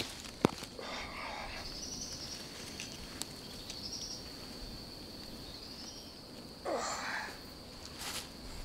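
A steady high-pitched insect drone in woodland, with one sharp click about half a second in and two brief rustles in dry leaf litter, about a second in and near seven seconds.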